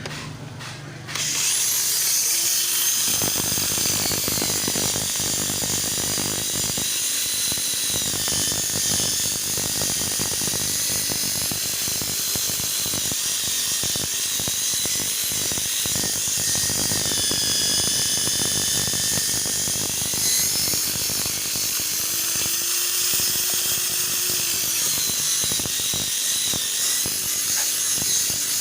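Electric polishing machine starting up about a second in and running with a steady high-pitched whine while polishing a plastic car headlamp lens, its pitch sagging slightly now and then as it is pressed against the lens.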